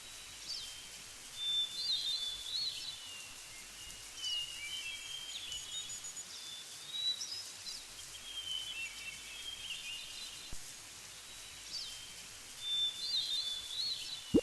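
Birds singing: short chirps and whistles, with a louder burst of calls returning about every six seconds, over a steady background hiss.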